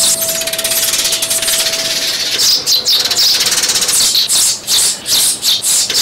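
Eurasian tree sparrows calling, as in a lure recording of adult sparrows. The calls open with a fast dry chattering rattle, and from about halfway through come sharp repeated chirps, several a second.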